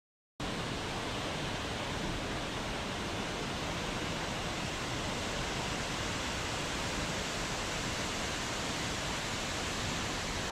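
Waterfall rushing, a steady, even roar of falling water that starts abruptly about half a second in.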